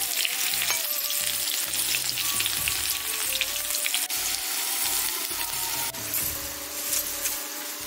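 Potato wedges sizzling and crackling as they fry in hot mustard oil in a steel kadhai, browning; a metal spatula stirs them near the start.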